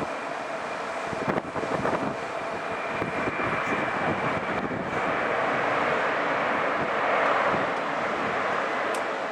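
Boeing 747-400 jet engines at takeoff power: a steady rushing noise with a high whine, growing louder and peaking about seven seconds in, with wind buffeting the microphone early on.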